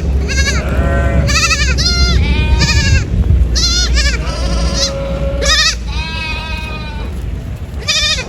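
Goats bleating over and over, several voices with shaky, quavering calls overlapping one another, over a steady low rumble.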